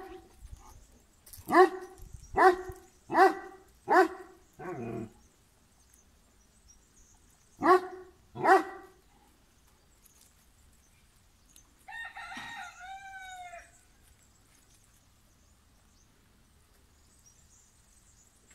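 A dog barking, a run of five barks about a second apart and then two more a few seconds later. About twelve seconds in, a rooster crows once.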